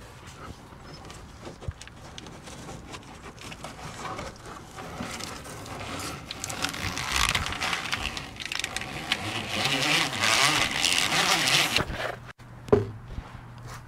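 Plastic split-loom wire tubing crackling and scraping as cables are worked into it by hand. The noise grows louder and busier through the middle, then a sharp click comes near the end.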